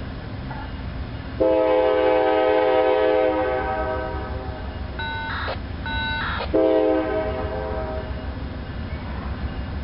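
A distant approaching freight locomotive's multi-chime air horn sounds a long chord, then two short blasts of a thinner, higher tone, then another chord that fades out, over a steady low rumble of the train.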